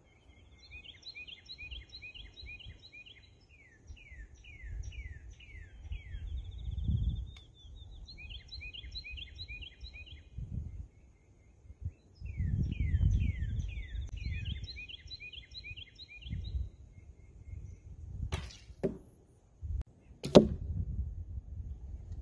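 A songbird sings three bouts of repeated trilled phrases, with gusts of wind on the microphone. Near the end a bow is shot, with a couple of sharp clicks, then the loudest sound: an arrow striking the foam block target with a sharp impact.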